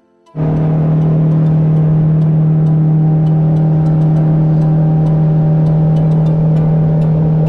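A motor running steadily at constant speed, a loud even hum with a fixed pitch, starting abruptly just under half a second in.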